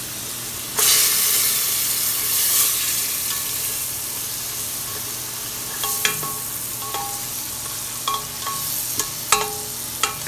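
Onion and spice masala frying in hot ghee in a steel pressure cooker, sizzling steadily and growing louder about a second in. In the second half a spatula knocks and scrapes against the pot several times, each knock ringing briefly off the metal.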